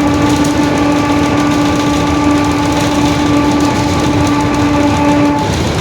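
Mercedes-Benz OF-1721 bus's differential whining ("roncando") with one steady tone over the low rumble of the running bus; the whine stops a little before the end while the rumble continues.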